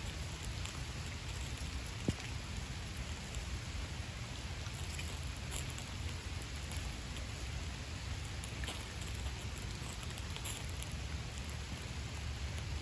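Steady rain falling and pattering on surfaces, with one sharp pop about two seconds in.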